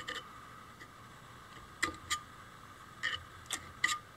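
A screwdriver tip clicking and scraping against the inside of an electric motor's magnet housing: a handful of sharp, irregularly spaced metallic ticks. It is picking at metal bits stuck to the magnets, debris that rubs against the rotor and makes the motor grind.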